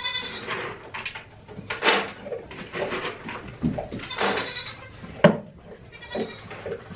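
Goats bleating: about four calls, a second or two apart. A single sharp knock comes about five seconds in.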